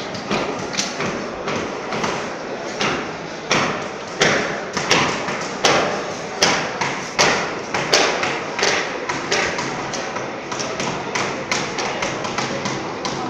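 A fast, irregular series of sharp knocks and taps. In the middle stretch a run of louder knocks comes at a steady pace, about one every three-quarters of a second.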